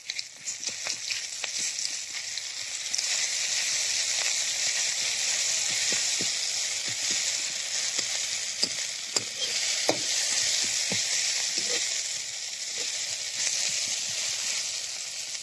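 Sliced onion and red spice paste sizzling in hot oil in a kadai, growing louder over the first few seconds, while a metal spatula stirs them with repeated scrapes and clicks against the pan.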